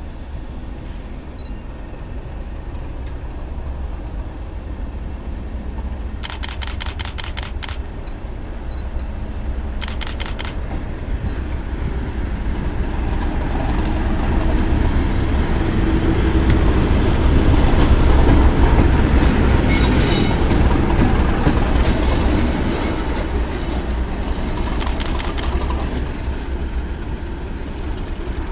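Class 37 diesel-electric locomotive with its English Electric V12 diesel engine running light engine past: a heavy low rumble that grows louder as it approaches, is loudest just past the middle as it passes, then fades as it pulls away. Short bursts of rapid clicking cut in several times.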